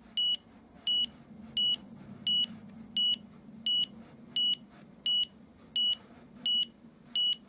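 Handheld wall detector beeping repeatedly and evenly, about eleven short high beeps, one every 0.7 seconds or so. It is failing to calibrate on freshly dampened plaster; such detectors need a dry surface.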